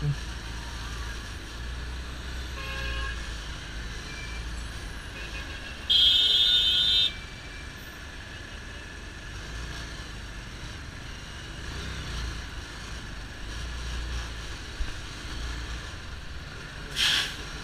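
Steady low rumble of a motorcycle engine and surrounding traffic in stop-and-go flow, with a loud, high-pitched horn sounding for about a second roughly six seconds in. A short loud hiss comes near the end.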